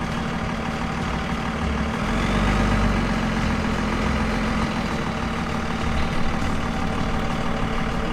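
Pickup truck driving, its engine running steadily, heard from inside the cab.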